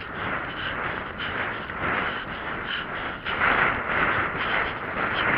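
A horse cantering, its breathing blowing out in a repeating rhythm with its strides, mixed with hoofbeats and wind rushing over the rider-mounted camera's microphone.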